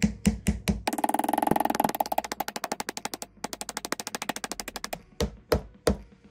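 Metal hammer knocking on the top of a new wooden hammer handle, driving the handle and its wedge into the eye of the club hammer head. Steady knocks about four a second, then a fast roll of light taps, then three heavier knocks near the end.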